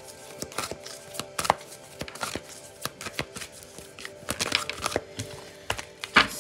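Tarot cards being shuffled and handled: a quick, irregular run of sharp clicks and slaps, over soft background music with held tones.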